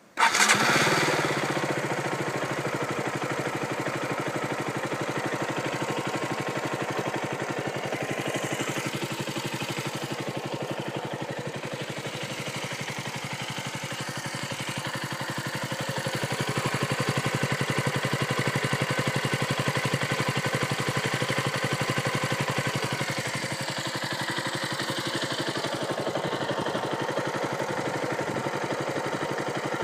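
2013 KTM Duke 125's single-cylinder four-stroke engine, warm, starting and settling straight into a steady idle through the stock exhaust. The idle grows a little louder for several seconds past the middle, then eases back.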